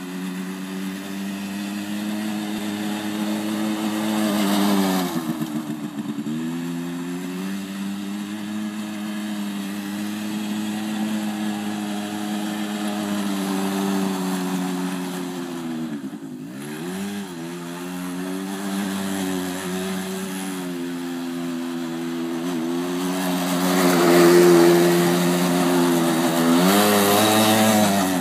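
Engine of a 100cc Quadzilla quad bike running as it is ridden across grass, holding a steady pitch. The revs drop and climb again about five seconds in, around sixteen seconds and at the very end; it is loudest a few seconds before the end as the quad passes close.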